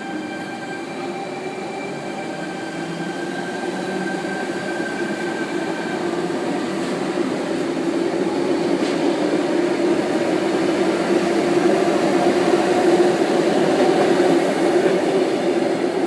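Sydney Trains Tangara electric trains at the platform: one pulling out with a steady high motor whine that fades away about six seconds in, while the rumble of another Tangara grows steadily louder as it comes through.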